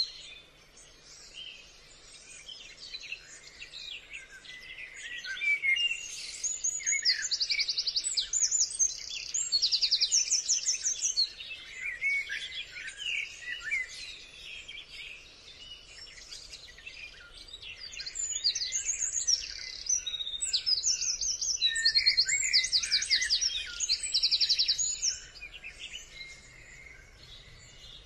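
A busy chorus of high chirps, short sweeping whistles and fast pulsed trills, swelling in two louder spells and thinning out in between.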